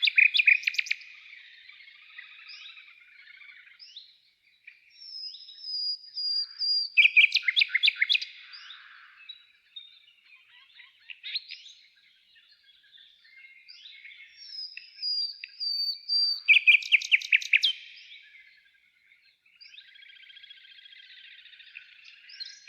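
A songbird singing: three loud phrases about nine seconds apart, each a high whistled note followed by a fast run of repeated notes, with softer twittering between them.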